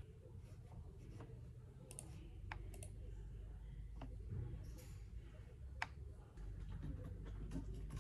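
Computer mouse clicking, about five separate clicks spread over a few seconds, over a low steady room hum.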